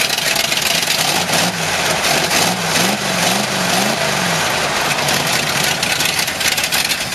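1979 Ford F-150's 460 big-block V8 running steadily, blipped up and down three times in quick succession in the middle.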